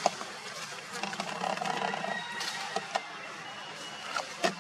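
An insect buzzing, strongest between about one and three seconds in, with a few sharp clicks.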